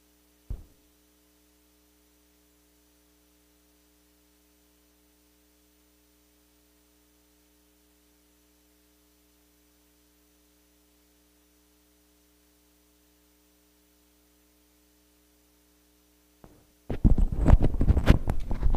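Steady electrical hum from the sound system over near silence, with a brief click about half a second in. Near the end come loud, irregular knocks and rustles of a microphone being picked up and handled.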